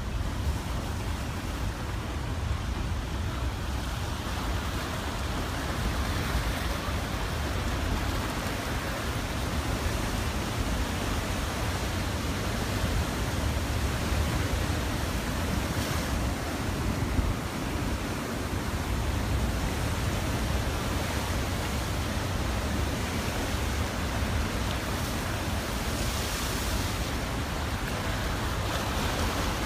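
Steady rush of a dam's flood release, water pouring out of the outlet at about 7,800 cubic feet per second, mixed with a heavy low wind rumble on the phone microphone.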